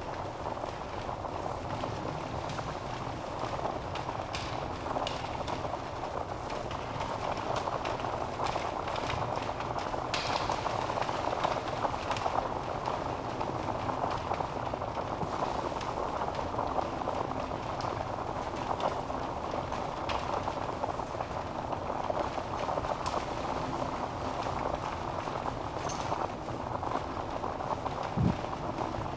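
Wood fire burning in a fireplace: a steady hissing rush of flames with frequent sharp crackles and pops from the logs, one louder pop near the end.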